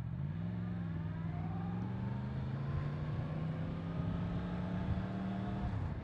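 A Yamaha MT-10's crossplane inline-four engine pulling away from a stop under throttle. The revs rise just after the start and climb slowly, then dip briefly near the end as it shifts up a gear, over a steady rush of wind and road noise.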